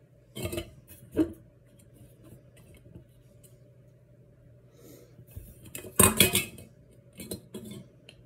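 Stainless steel canning funnel knocking and clinking against a glass mason jar as chunks of kielbasa are pushed through it into the jar. Two sharp knocks in the first second or so, then a louder cluster of clatters about six seconds in and a few lighter knocks after.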